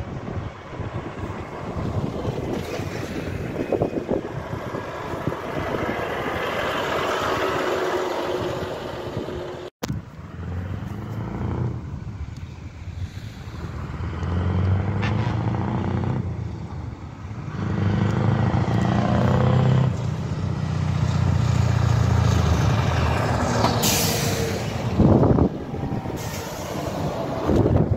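Heavy trucks, DAF and Scania tractor units, driving past one after another, their diesel engines swelling as each one nears and passes. A short sharp hiss of air comes near the end.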